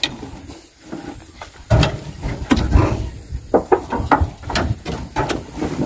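Oil palm fruit bunches being thrown from a pickup into a steel dump-truck body. There is a quick, irregular series of heavy thuds and knocks as the bunches land, starting about two seconds in.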